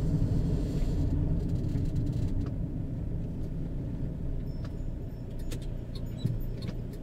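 Van engine and road noise heard from inside the cab while driving: a steady low rumble that slowly gets quieter, with a few faint clicks near the end.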